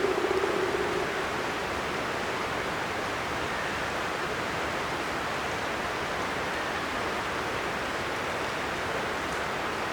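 Steady, even rush of a forest stream. A brief low hum at the start fades out about a second in.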